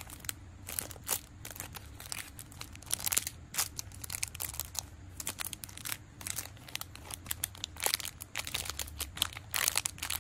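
Clear plastic bags crinkling in irregular crackles as the mini squishy toys sealed inside them are handled and squeezed, over a steady low hum.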